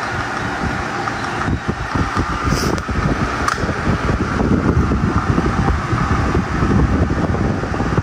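FAET Clima II desk fan running, its airflow buffeting the microphone as a steady, fluttering wind rumble. A few light clicks in the first half.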